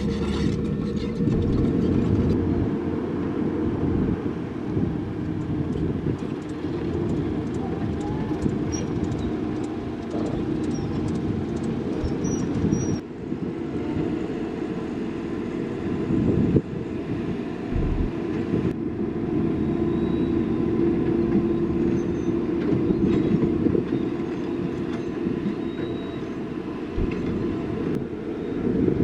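Heavy diesel construction machinery running: a steady, deep mechanical rumble with a few brief knocks.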